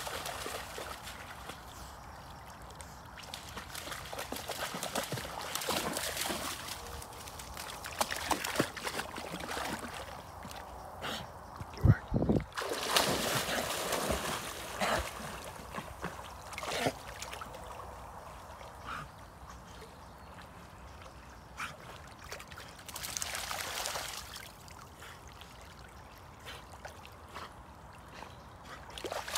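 Springer spaniels swimming through pond water, with uneven splashing and sloshing that comes and goes. A loud thump about twelve seconds in.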